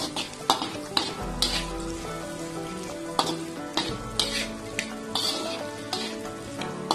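Cubed potatoes with onion, garlic and chillies frying in oil in a pan: a steady sizzle, broken by irregular sharp scrapes and knocks of a metal spatula against the pan as the mixture is stirred.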